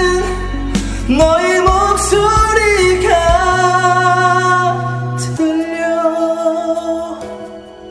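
An amateur singer's voice singing a Korean pop ballad over its instrumental accompaniment, holding long notes with vibrato. The music fades out near the end.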